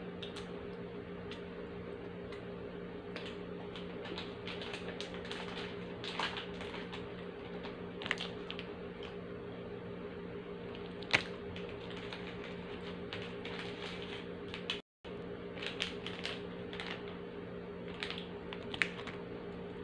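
Irregular crisp crackles and clicks of a plastic biscuit wrapper being worked open at the mouth, with one sharper click about halfway through, over a steady low hum.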